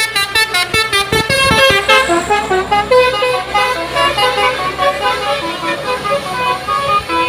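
Telolet horn on an Indonesian bus: a multi-tone musical horn playing a tune, first as a quick run of short toots, then as a slower melody of changing notes. A steady low engine hum runs underneath.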